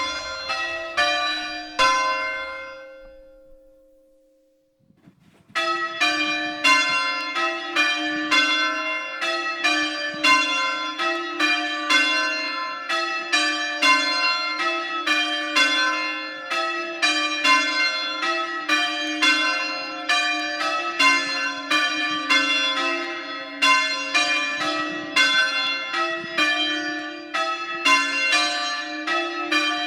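A ring of three Mears church bells, tenor 4–2–6 in C, rung full circle, the bells striking one after another at a quick, even pace, very loud. About two seconds in the ringing stops and the bells hum away to near silence, then it cuts back in abruptly a few seconds later and carries on.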